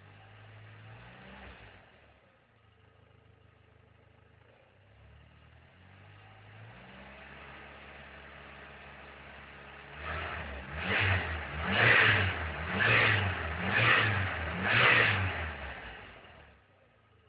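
Car engine idling, then revved in five quick blips about a second apart before settling back to idle; the engine runs on a MegaSquirt MS2 plug-and-play ECU driving low-impedance injectors.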